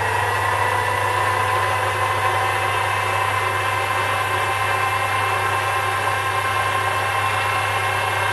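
Sherline micro lathe running at steady speed: an even motor and spindle whine over a constant low hum.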